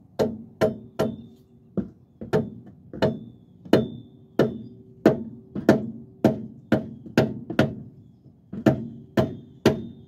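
Hand hammer striking metal on the front upper control arm area of the suspension, about seventeen sharp blows at roughly two a second with a short pause near the end, each leaving a brief metallic ring.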